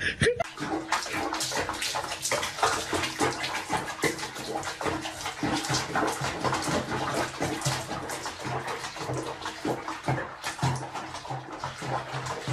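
Water splashing and sloshing in a small basin as a cat is bathed in it, a steady run of many small splashes.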